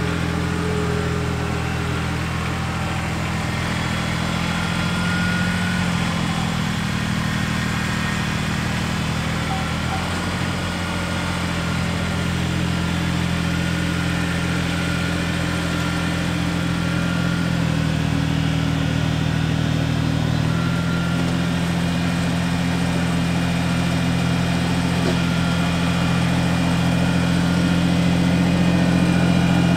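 Kubota compact tractor-loader-backhoe's diesel engine running steadily. Its pitch shifts about a third of the way in and again for a couple of seconds past the middle as the machine is worked.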